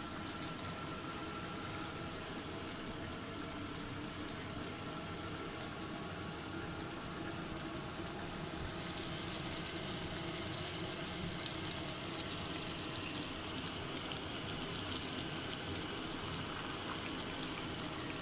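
Chicken curry bubbling and sizzling in a pan, a steady fine crackle that gets a little brighter about halfway through.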